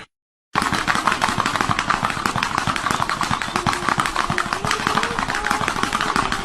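Dense, rapid clatter of many small knocks, starting about half a second in, with a faint wavering tone under it in the second half.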